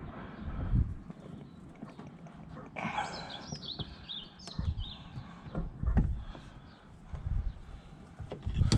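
Knocks and clicks of hand work on a Saab 9-5 door as the last Torx screw of a new door pull handle is driven home, with a run of short high squeaks about three seconds in.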